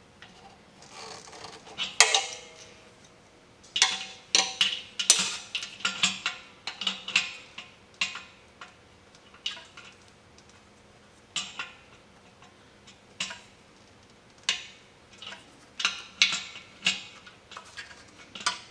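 Irregular metallic clinks and clicks from an adjustable wrench working a threaded valve fitting on an air compressor, tightened in short strokes with the wrench repositioned between them, some clicks coming in quick clusters.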